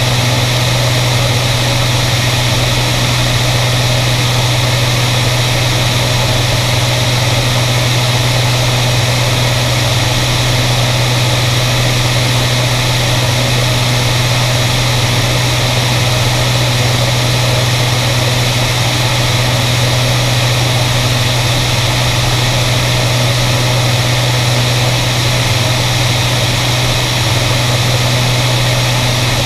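Beriev Be-103's twin piston engines and propellers running steadily in flight: a constant low hum under an even rush of wind.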